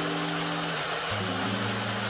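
Background music of slow, held low notes that change pitch every second or so. Under it is a steady hiss of chicken and pork ribs sizzling in the pot.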